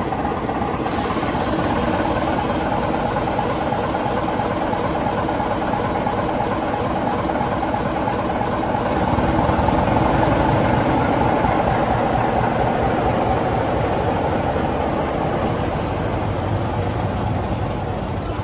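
Class 24 diesel locomotive D5054's Sulzer six-cylinder engine running as the locomotive departs. It grows louder about halfway through, and a deeper rumble builds as the locomotive moves off past the platform.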